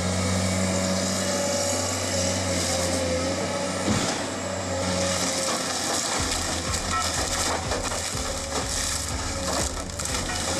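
An engine running steadily, with a single sharp knock about four seconds in. Its low rumble turns to a rapid pulsing about six seconds in.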